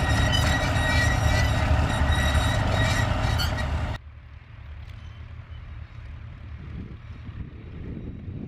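Vintage tractor engine running steadily while pulling a plough, with a low rumble and a steady whine. About four seconds in it cuts off abruptly, leaving only a much fainter low rumble.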